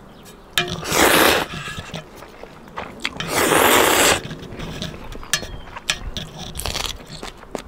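A person slurping ramen noodles in two loud slurps of about a second each, with chewing and small crunching clicks in between.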